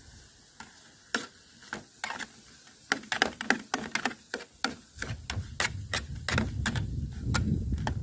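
Metal spoon stirring and scraping food in an aluminium British Army mess tin, giving irregular clinks several times a second, busiest in the middle, while the food browns over a hexamine tablet stove.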